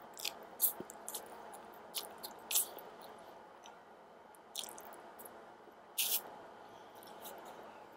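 Close mouth sounds of a person eating noodles in black bean sauce: irregular wet slurps and lip smacks with chewing between, the sharpest ones near the start and about six seconds in.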